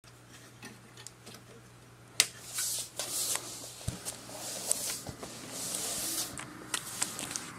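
Handling noise: rustling and rubbing with scattered sharp clicks and knocks, starting about two seconds in.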